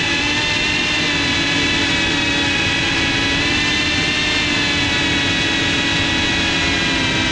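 FPV quadcopter's motors and propellers whining steadily, several pitched tones wavering slightly as the throttle shifts.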